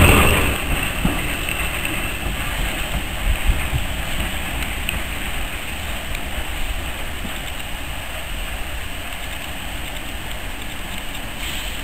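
Small saddle-tank steam locomotive moving slowly, heard as a steady hiss with a few faint clanks in the first few seconds, in steady rain. The louder sound of it passing close drops away right at the start.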